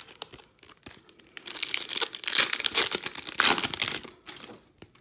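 The wrapper of a 2021 Topps Opening Day baseball card pack crinkling and tearing as it is ripped open, loudest in the middle, among light clicks and rustles of cards being handled.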